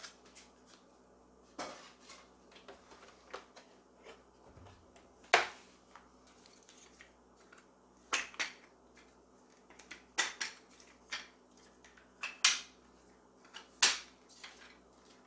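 Hard plastic parts clacking and knocking as a sewing machine's plastic extension table and its accessories are handled on a tabletop: a string of separate sharp clacks at uneven intervals, the loudest about five seconds in.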